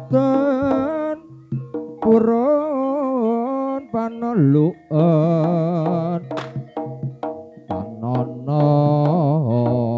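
Javanese jaranan gamelan music: a wavering, vibrato-laden lead melody over steady low notes, with sharp drum strokes throughout.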